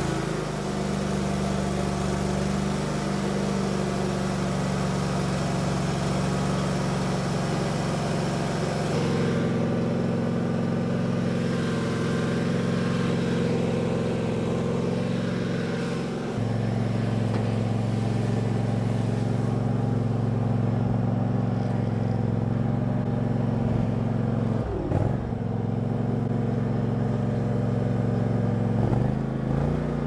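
Kawasaki V-twin engine of a Husqvarna zero-turn mower running steadily. Its note changes about a third of the way in and again about halfway.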